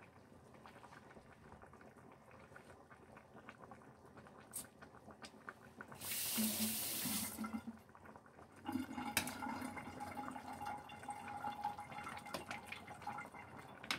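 Pork sinigang broth simmering in a stainless steel pot, with light bubbling and small ticks of a ladle in it. About six seconds in comes a brief loud rush of running water, and from about nine seconds a steady low hum sits under the bubbling.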